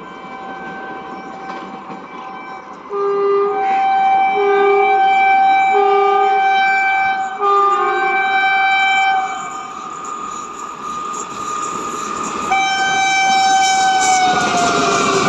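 Indian Railways WAP4 electric locomotive's multi-tone air horn honking: a long held chord about three seconds in, with a lower tone pulsing over it in four short toots. After a short gap the horn sounds again and drops in pitch near the end, as the rumble of the passing train grows.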